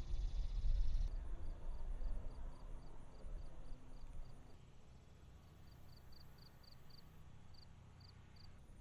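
Insects chirping in a steady pulse, about four chirps a second, with a fainter, higher chirping beside it. Under them is a low rumble that dies down about halfway through.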